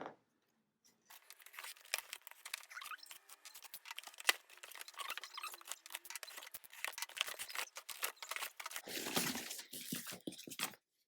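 A package being opened by hand: paper and cardboard packaging tearing, crinkling and rustling with many small clicks, starting about a second in.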